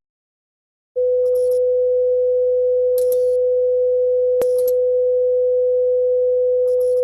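Emergency alert tone: one steady, unbroken tone that starts about a second in after a short silence, with a brief click partway through.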